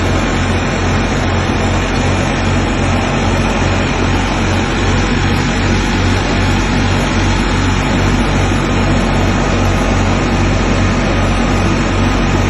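Diesel tractor engine running steadily under load while it drives a wheat thresher, an even low throb under a broad, steady threshing-machine noise.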